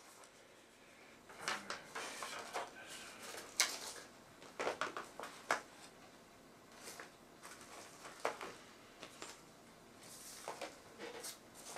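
Small sculpted pieces handled and shifted about on a cluttered worktable: irregular light clicks, knocks and rustles, most of them in the first half.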